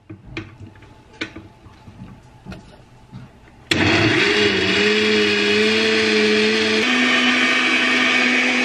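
A few light knocks, then about four seconds in a countertop blender switches on abruptly and runs loud and steady, blending soaked cashews with water into cashew milk. Its motor pitch steps up a little about three seconds after it starts.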